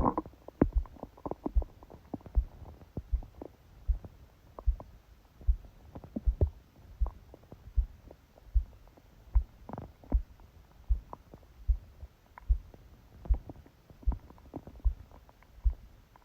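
Heartbeat and stomach sounds of a sleeping person, picked up by a phone lying on the belly. The heartbeat is a steady low thump, a little over one a second. Over it come scattered small gurgles and pops from the stomach, a louder burst right at the start and a longer gurgle about ten seconds in.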